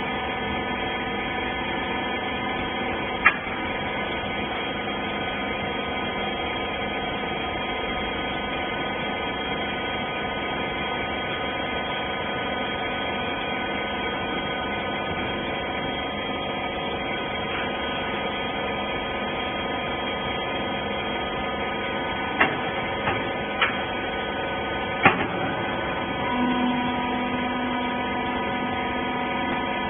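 Used-clothes baler's hydraulic power unit, its electric motor and pump running with a steady hum. There are a few sharp clicks: one early, then several close together later. Near the end a second, lower tone joins in.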